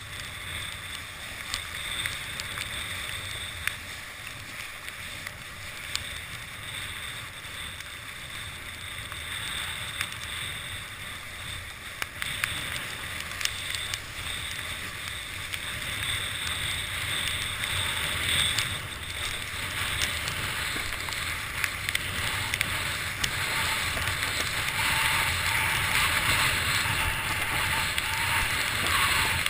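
Windsurf board planing over choppy water, heard from a boom-mounted camera: steady rush of water and spray with wind on the microphone, and scattered sharp knocks. It grows louder in the last few seconds.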